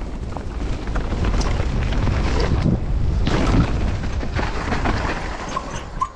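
Wind buffeting the microphone while a Nukeproof Mega mountain bike is ridden fast over a dirt trail, with tyre rumble and scattered knocks and rattles from the bike. It swells to its loudest a little past halfway, then eases off.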